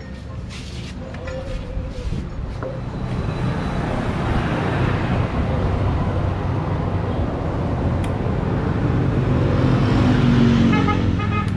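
A road vehicle passing close by: engine and road noise swell over several seconds to a peak near the end, then begin to ease. A few light clicks come in the first few seconds.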